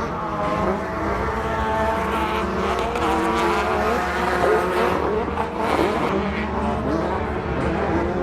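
Several off-road racing vehicles' engines running hard at once, their pitches rising and falling as they rev and back off.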